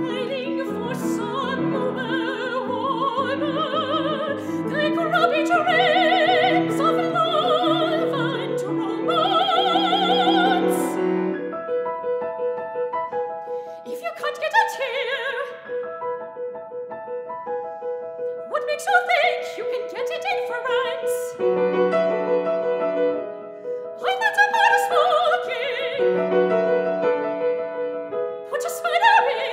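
Solo operatic soprano singing with piano accompaniment. There is continuous singing with a wide vibrato at first; from about twelve seconds in, short sung phrases come between held piano notes.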